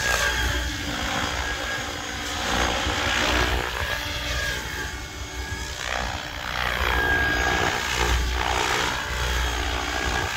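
SAB Kraken 700 electric RC helicopter running under power, its main rotor blades beating over a steady high whine from the motor and gearing. The sound swells and fades as the helicopter moves about.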